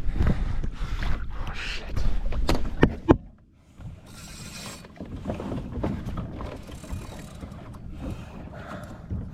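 Handling noise from kayak fishing gear during the fight with a hooked fish: sharp clicks and knocks over a low rumble, which cuts off suddenly about three seconds in. After that come quieter scraping, rustling and a brief hiss.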